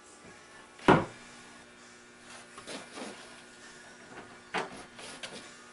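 Wooden boards being handled and set down on a plywood workbench: one sharp wooden knock about a second in, then several lighter knocks and scrapes.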